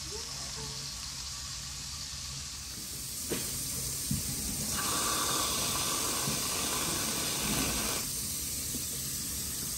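Hot water hissing and steaming as it heats. The hiss gets louder about two and a half seconds in, two light clicks follow, and a steady tone rides on the hiss for a few seconds in the middle.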